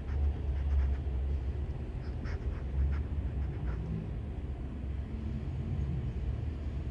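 Domestic cat purring steadily, a low continuous rumble, with a few faint soft clicks in the first second and again two to three seconds in.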